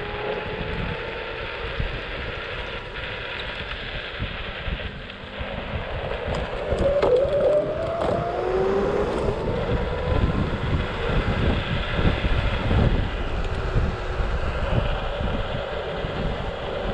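Scooter engine running on the move, its pitch rising as it accelerates near the start and again midway, over steady wind rumble on the microphone.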